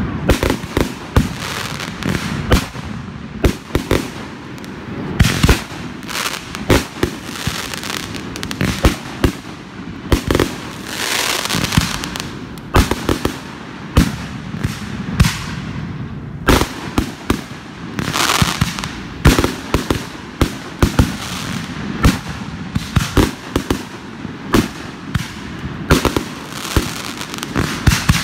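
Aerial fireworks going off in quick succession: many sharp bangs at an uneven rate of several a second, with stretches of crackling between them.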